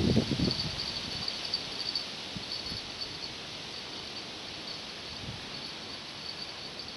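Crickets chirping in a faint, steady, high-pitched pulsing trill. Wind buffets the microphone as a low rumble during the first second.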